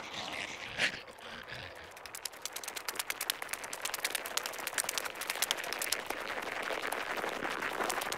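Rapid, dense ticking and scratching of ant footsteps scurrying over snow, a stylised insect sound effect, with a few scattered ticks at first and becoming a fast continuous patter from about two seconds in.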